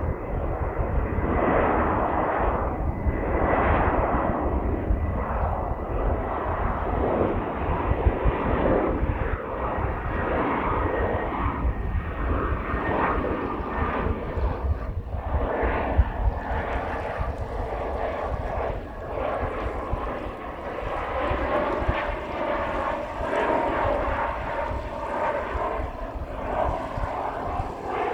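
Jet airliner engines running, a steady rushing noise with a faint whine held over it.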